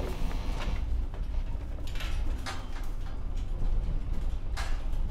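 Steady deep rumble of a minibus running, heard from inside the cabin, with a few short swishing or rattling noises over it.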